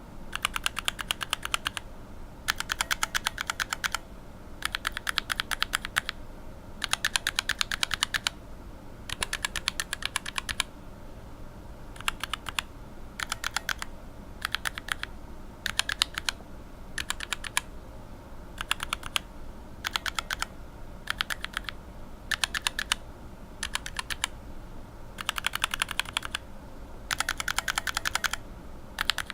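Unlubed linear mechanical keyboard switches (Cherry retooled lower housings with Revo White stems and springs) pressed in runs of rapid keystrokes, each run up to about two seconds long, with short pauses between runs.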